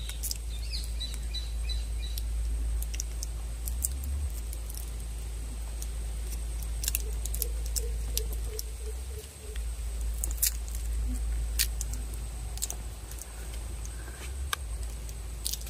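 Outdoor ambience: a steady low rumble with scattered sharp ticks, and a brief run of bird chirps about a second in.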